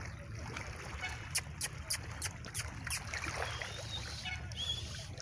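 Shoreline ambience: a steady low rumble of wind and water, broken by a run of six sharp clicks about a third of a second apart, and two faint, thin, high bird calls near the end.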